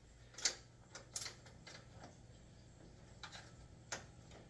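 A few scattered light clicks and taps of hands handling parts in a car's engine bay, over a faint steady low hum.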